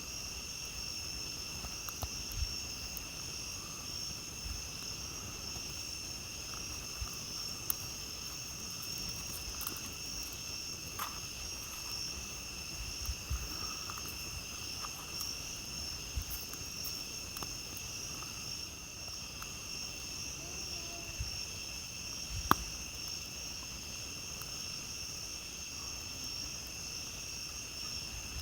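A steady chorus of crickets and other night insects trilling without a break, with a campfire crackling underneath in scattered small pops and one sharp, louder pop about three-quarters of the way through.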